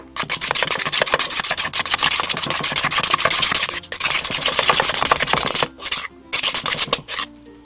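Metal spoon scraping and stirring around a bowl, mixing shaving cream into dyed glue to make fluffy slime. Rapid scraping strokes with two brief pauses, stopping shortly before the end.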